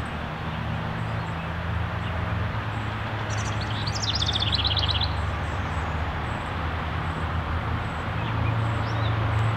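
Steady low motor drone under outdoor background noise, with a bird singing a quick trill of high repeated notes from about three and a half seconds in, lasting about a second and a half.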